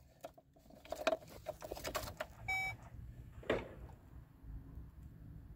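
Car keys rattling and clicking at the ignition of a 2005 Chevy Cavalier, then one short electronic dash chime about two and a half seconds in and a sharp click a second later as the key is turned on, before the engine is cranked. A faint low hum follows.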